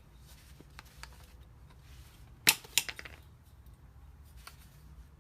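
A few sharp clicks and knocks of things being handled, the loudest a pair about halfway through, over a steady low hum.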